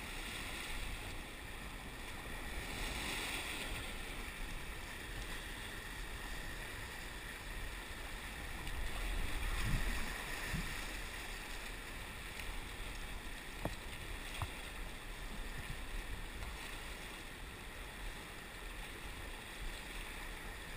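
Rushing river rapids around an inflatable kayak, with paddle strokes in the water; the rush of water swells louder about nine seconds in, and a few light knocks sound a few seconds later.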